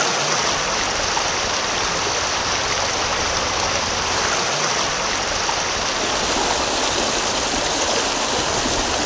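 Fast, muddy floodwater streaming across a road in choppy standing waves: a steady rush of water.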